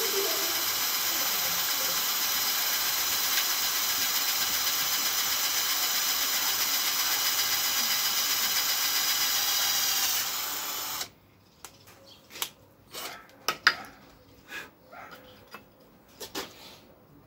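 Cordless drill running steadily with a high motor whine as it bores a hole into a wooden board. It stops about eleven seconds in, followed by a few scattered sharp clicks and knocks.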